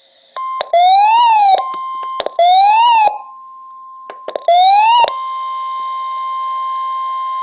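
Emergency Alert System signal: three loud data bursts of the header, each rising then falling in pitch, then about five seconds in the steady attention tone begins and holds.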